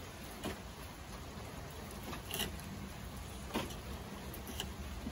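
A few faint, separate taps and scrapes of a knife against a wooden cleaning table as a fish fillet is trimmed, over a steady low rumble.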